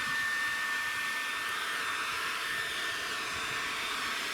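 SnapFresh 20-volt cordless leaf blower running steadily: a rush of air with a thin, high electric-motor whine held at one pitch.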